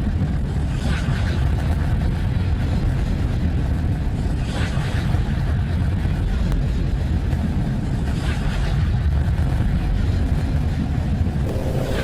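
Steady low rumbling drone, played as a "sound of space" recording, with a faint hissing swell rising over it about every four seconds.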